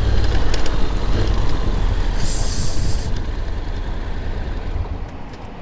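Honda X-ADV 750's parallel-twin engine with heavy wind and road rumble as the bike rolls over cobblestones and slows to a stop, the rumble fading over the last couple of seconds. A brief high hiss comes about two seconds in.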